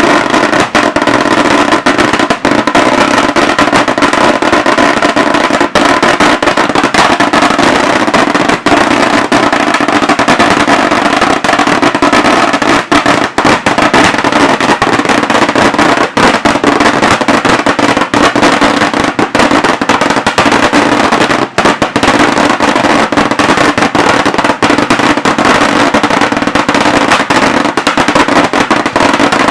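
Daytime fireworks: a dense, continuous barrage of firecracker reports running together with no pause, very loud and overloading the recording.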